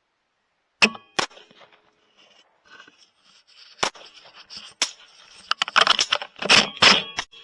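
Rifle shots: two sharp cracks in quick succession about a second in, two more spread out after, then a busier stretch of sharp cracks and noise near the end.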